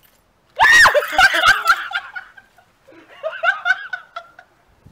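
A woman gives a sudden loud cry about half a second in, startled by a large fake spider, then breaks into bursts of laughter, with a second run of laughing near the end.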